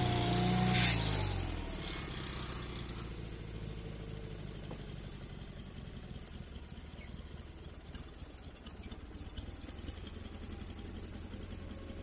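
Wood-Mizer LT40HD portable sawmill engine throttling down from high revs: its pitch and loudness drop about a second in, and it then idles steadily with light clatter.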